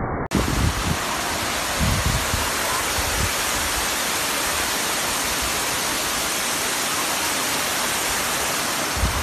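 Bridal Veil Falls, a tall cascading waterfall, rushing down a rock face and splashing onto boulders: a steady, loud roar of falling water. A few low thumps on the microphone come in the first three seconds.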